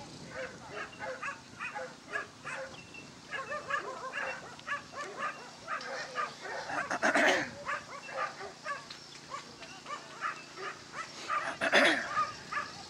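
Dogs barking and yipping in a rapid run of short, high calls, with two louder outbursts about seven and twelve seconds in.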